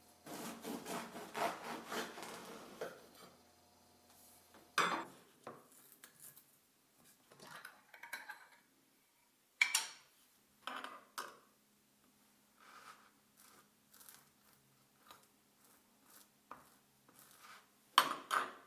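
Objects being handled: rubbing and scraping for the first few seconds, then scattered knocks and clinks like dishes and utensils being set down, the sharpest near the end.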